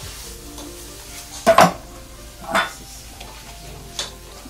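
A cooking utensil scraping and knocking against a pan while stirring a frying filling: three short clatters, the loudest about a second and a half in, over a faint background.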